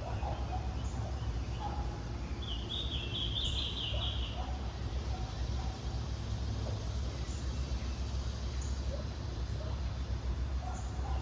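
Outdoor ambience: a steady low rumble, with a quick run of high bird chirps about two and a half seconds in that lasts about two seconds.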